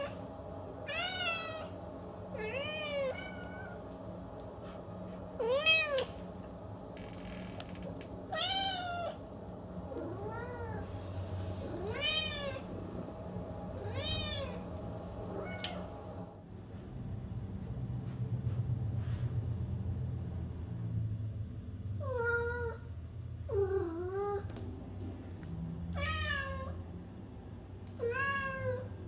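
Domestic cat meowing again and again: short meows that rise and fall in pitch, one every second or two. About midway there is a pause of several seconds with only a low hum, then the meows start again, some of them lower and drawn downward.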